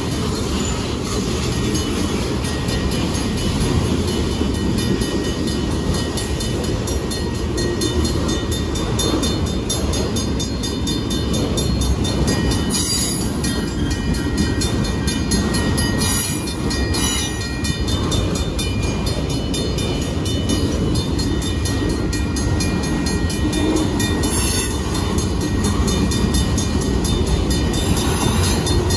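Union Pacific freight train of autorack cars rolling past: a steady rumble of steel wheels on the rails, with a few brief high squeaks.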